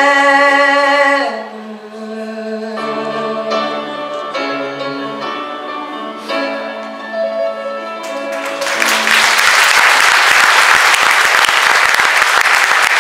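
A man's sung held note closing the song, then a few seconds of instrumental outro music, then audience applause breaking out about two-thirds of the way in, the loudest part.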